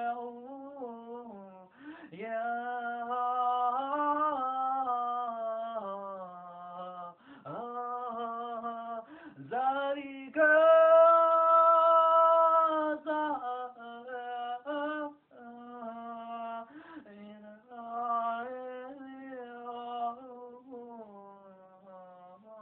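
One voice singing unaccompanied, a slow melody of held notes that bend and slide in pitch. About halfway through comes a long held note, the loudest part.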